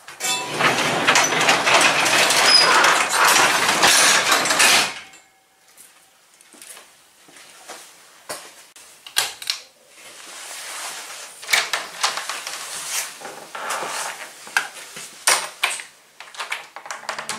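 A manual sectional garage door pulled down and rattling along its tracks for about five seconds, followed by scattered clicks and knocks.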